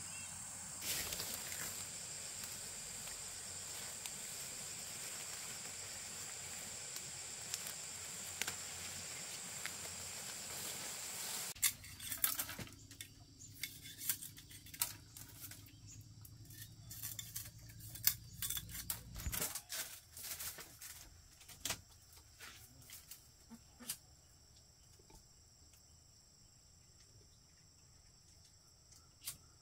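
Steady high insect chirring, with a run of scattered clicks and knocks in the middle.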